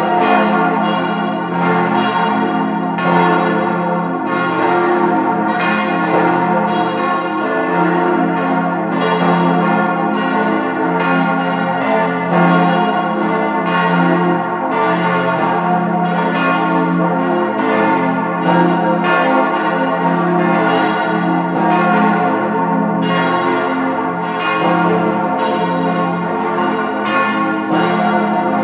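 Large swinging church bells from a four-bell peal cast by Rüetschi of Aarau in 1904, tuned F, A, c, f to an F major chord, with the heaviest bell over 8 tonnes. Strikes overlap in a steady stream, several a second, each tone ringing on under the next.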